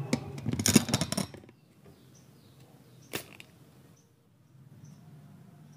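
Handling noise of tools against a TV circuit board during component replacement: a second and a half of clattering and rustling with many small clicks, then a single sharp click about three seconds in, over a faint low hum.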